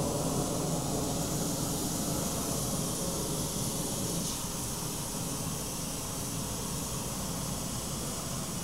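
Red pyrotechnic flare burning with a steady hiss.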